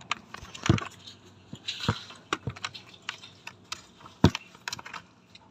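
Computer keyboard keystrokes: irregular, scattered clicks of keys being pressed, with one louder click about four seconds in.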